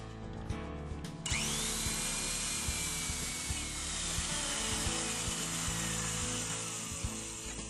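Electric drill driving a bi-metal hole saw into a wooden door. About a second in, a steady cutting hiss starts, with a whine that slowly falls in pitch; soft background music runs underneath.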